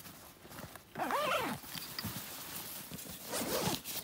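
An animal calls twice, two short calls that rise and fall in pitch, the first about a second in and the second, lower one near the end. Between them come faint rustling and handling sounds as a side compartment of a camera backpack is opened.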